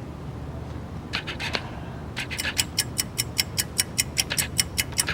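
Rapid ratcheting clicks of a wind-up winder being turned: a few scattered clicks, then from about two seconds in a steady run of about five clicks a second over a low hum, cutting off suddenly at the end.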